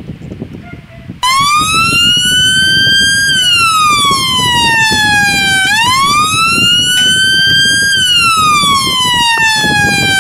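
Emergency-vehicle siren in a slow wail, coming in loud about a second in and rising and falling in pitch about every four to five seconds, over a low rumbling noise.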